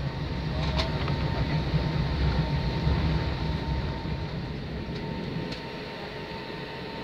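Cabin noise of an Airbus A320 taxiing: the steady sound of its IAE V2527 engines at taxi power with a low rumble, which eases off about halfway through. A few faint clicks.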